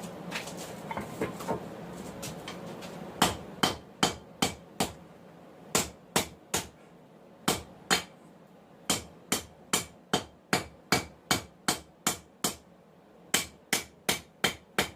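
Hammer blows on hot 1080 high-carbon steel over an anvil, forging a knife blank. They come in quick runs of about two or three strikes a second with short pauses between, each with a brief metallic ring. They begin about three seconds in, after a steady low rushing noise.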